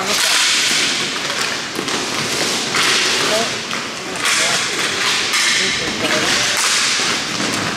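Hockey play: skates scraping in long hissing strokes, with sharp slaps and knocks of sticks and puck.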